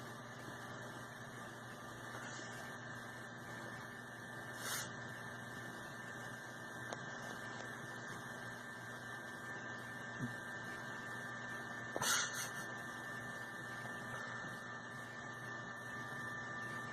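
Steady electrical hum with a light hiss, broken by brief faint noises about five and twelve seconds in.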